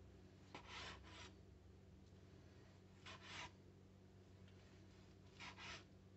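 Chef's knife slicing grilled skirt steak, the blade rasping through the crust and onto the cutting board in three short strokes about two and a half seconds apart, over a low steady hum.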